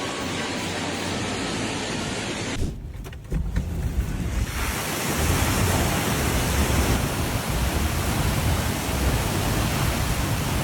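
Steady rush of wind and surging water. About three seconds in it drops out briefly, then returns louder, with a heavy low rumble of wind buffeting the microphone.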